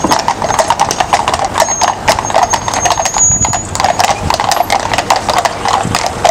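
Shod hooves of a team of horses drawing a hearse carriage, clip-clopping on a tarmac road as they walk past; many overlapping, uneven hoof strikes.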